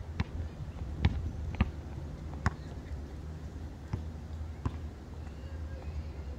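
A basketball bouncing on an outdoor concrete court: about five sharp single bounces at uneven intervals over a steady low rumble.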